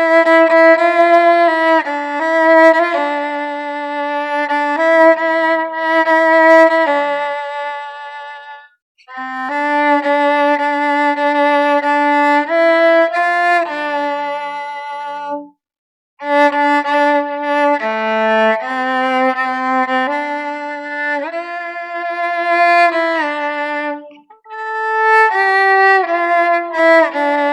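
A bowed string instrument playing a solo melody of held, stepping notes in three long phrases, each broken off by a short pause.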